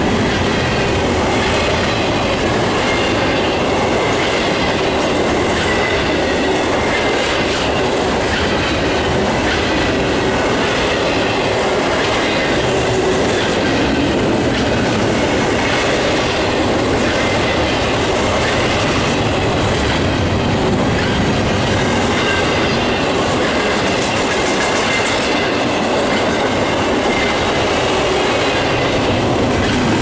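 Double-stack intermodal train of loaded container well cars rolling past at steady speed, wheels clattering on the rails with a faint high squeal from the wheels.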